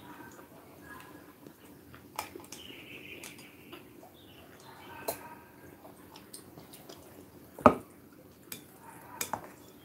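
Quiet clinking and tapping of chopsticks against bowls during a meal, with one loud sharp knock about three-quarters of the way through, as a bowl is set down on a wooden table.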